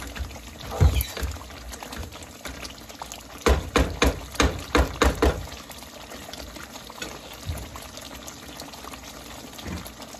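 Thick curry sauce simmering and sizzling in a saucepan on low gas, the oil separating to the surface, the sign that the dish is done. A kitchen utensil knocks against the pan a few times about a second in, then about seven quick sharp taps come between about three and five seconds in.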